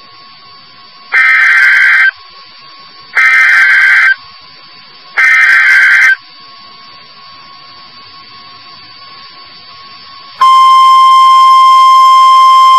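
Emergency Alert System SAME header: three loud one-second bursts of harsh, screeching digital data tones about two seconds apart, followed near the end by the long, loud, steady alert attention tone that precedes the spoken warning.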